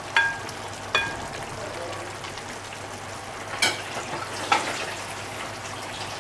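A wooden spoon knocks twice against a china bowl with short ringing clinks as okra is scraped into the pan, followed by two more knocks a few seconds later. Under it, tomato sauce simmers in the pan with a steady sizzle.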